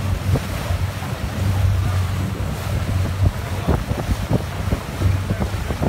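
Mercury outboard motor running steadily at speed as the boat tows a tube, with the rush of churning wake water and wind buffeting the microphone in irregular thumps.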